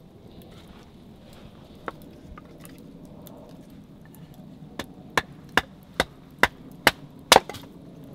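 A bushcraft knife being batoned through kindling on a wooden block, struck with a wooden stick. About halfway in come seven sharp wooden knocks, about two to three a second, the last the loudest.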